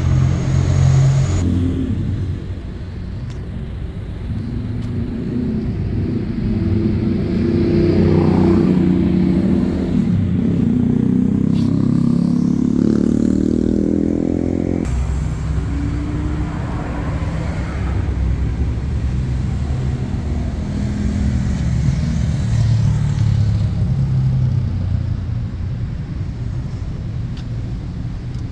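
Car engine running, with rising revs in the middle that cut off abruptly.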